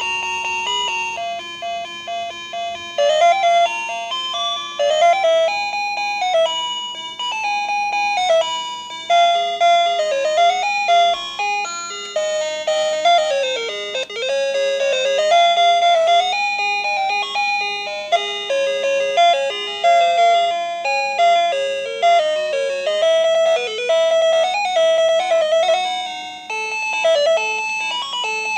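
Battery-operated Disney Princess toy phone playing simple electronic song tunes. A different tune plays from each number button as it is pressed, one note at a time in a stepping melody.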